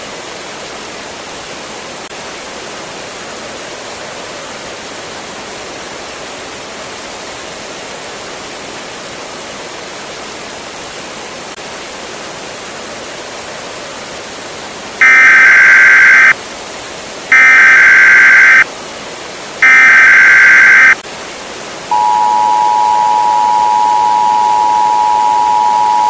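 A steady hiss of static, then the Emergency Alert System tones: three loud one-second SAME header data bursts with short gaps, followed about 22 seconds in by the steady two-tone EAS attention signal, the standard lead-in to a broadcast warning.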